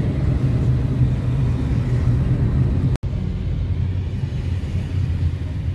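Steady low rumble of road and engine noise heard from inside a moving taxi's cabin. It breaks off for an instant about three seconds in, then carries on.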